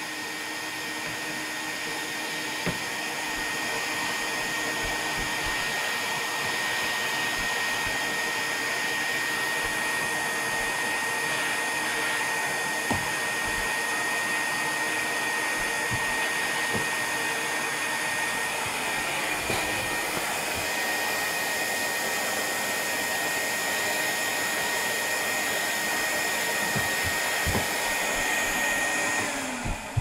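Canister vacuum cleaner running steadily, a whooshing hiss with a high whine, with a few soft knocks as the floor nozzle and hose bump on the hardwood floor. Right at the end the motor is switched off and its pitch drops away.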